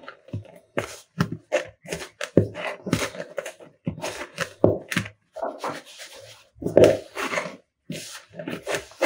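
Soft bread dough being kneaded by hand in a bowl: an irregular run of slaps, squishes and dull thuds, a few each second, as the dough is pressed and folded against the bowl.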